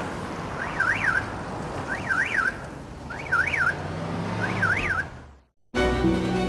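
Car alarm sounding in a repeating up-and-down warble, about one cycle every 1.3 seconds, over street noise. It fades out about five seconds in, and after a brief gap music begins.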